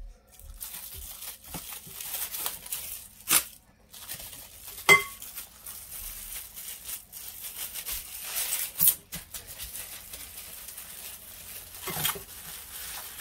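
Plastic cling wrap crinkling and crackling as hands wrap and roll a lump of wheat-gluten dough in it, with several sharper crackles, the loudest about five seconds in.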